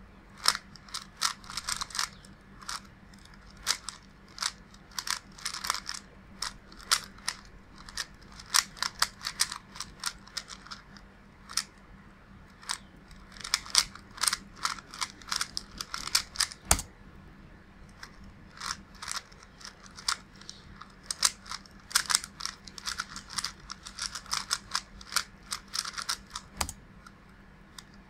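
Original-mechanism 30th Anniversary Rubik's Cube being turned by hand, its plastic layers clicking and clacking in quick bursts of turns broken by short pauses. The cube is stiff, lubed with a little silicone but turning like an unlubed budget cube. Two sharper single knocks stand out, one about two-thirds of the way through and one near the end.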